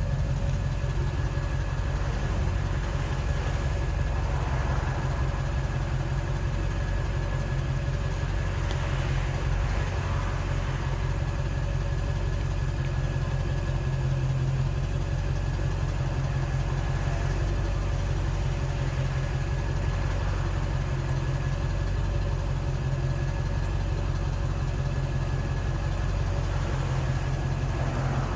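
A 7.3-litre turbo-diesel V8 idling steadily, with a thin, steady high turbo whistle over the engine.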